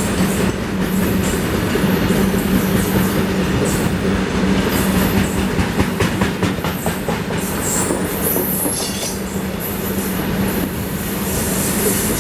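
Loaded BOXN open coal wagons of a freight train rolling past, wheels clacking over the rail joints over a steady low hum, with high-pitched wheel squeal coming in now and then toward the end.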